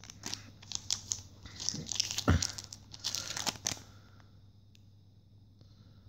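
Foil booster-pack wrapper crinkling and crackling as it is handled and turned over, a busy run of rustles for about four seconds that then stops.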